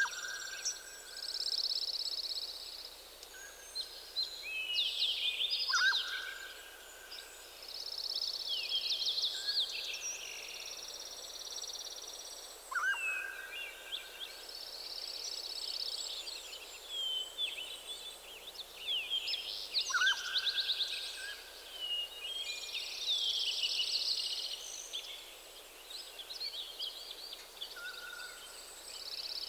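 Dawn chorus of several songbirds singing at once: fast, high chirps and trills overlap throughout, and one lower whistled call of about a second returns roughly every six to seven seconds.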